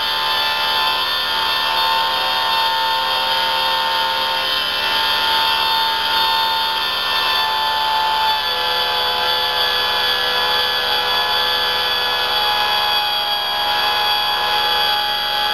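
3D-printed PLA model turbine engine spun by a blast of compressed air: a steady whine of several tones over the rush of air, its pitch shifting slightly about halfway through.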